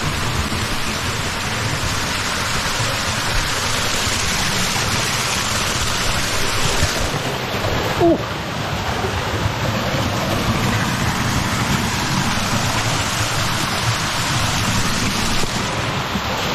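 Mountain stream water rushing steadily over rocks, with a short sliding squeak about halfway through.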